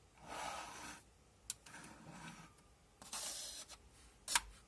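Plastic toy ambulance being handled and shifted on a table: three short scraping, rustling sounds with sharp plastic clicks, the loudest click near the end.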